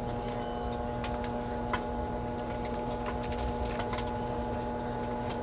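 Microwave oven running with a steady hum while cooking bacon, with a few faint ticks.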